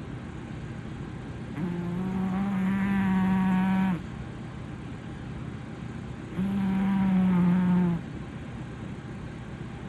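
A blue British shorthair cat snoring loudly. There are two long snores, each a buzzing drone at a steady pitch lasting about two seconds, roughly four and a half seconds apart.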